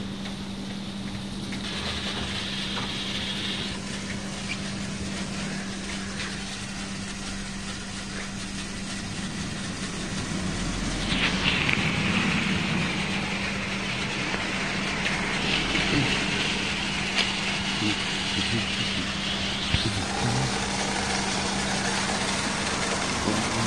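Rollover gantry car wash running over a car: a steady motor hum under the wash of spraying water and rotating brushes. A louder hiss comes in about eleven seconds in and drops back about twenty seconds in.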